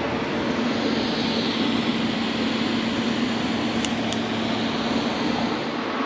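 Steady mechanical drone with a low hum, like shop machinery or a large fan running, with two faint ticks about four seconds in.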